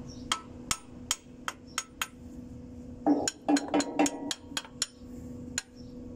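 Sharp metallic taps of a small hammer striking metal parts on a Hino 500 truck's transmission: single strikes about every half second, then a quicker run of louder strikes around three to five seconds in. A faint steady hum runs underneath.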